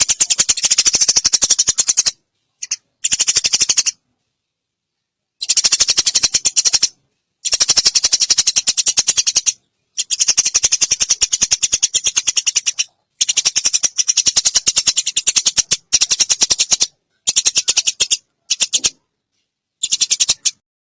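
Eurasian tree sparrow chattering in rapid, machine-gun-fast strings of high, even chirps, each string a second or two long with short pauses between, about ten strings in all.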